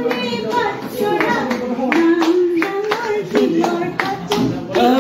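People singing a song together while clapping their hands on a steady beat, about three claps a second.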